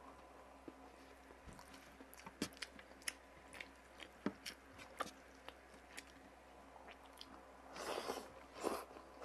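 Close-miked chewing of fried galunggong and adobong kangkong: irregular small wet clicks and crunches from the mouth, with two louder crunching bites near the end.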